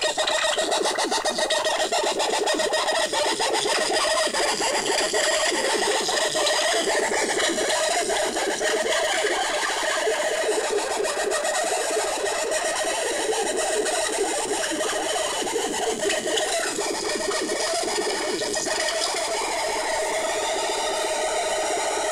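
Handmade Analog Ordnance modular synthesizer, run by analog sequencers, playing a steady, noisy electronic texture with several held tones that slide in pitch now and then as its knobs are turned.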